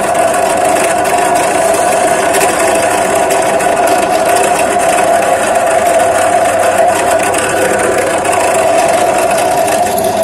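Drill press running steadily with a constant hum while a 5 mm twist bit drills a pilot hole in 40x40 steel square hollow tube.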